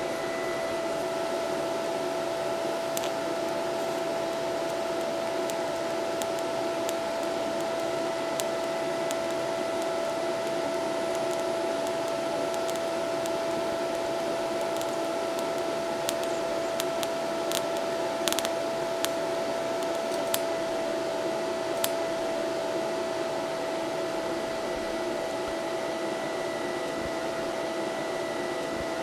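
TIG welding arc from a YesWelder TIG 200P running a bead along a 1/8-inch plate: a steady, even hiss with a constant mid-pitched whine, broken by a few faint ticks.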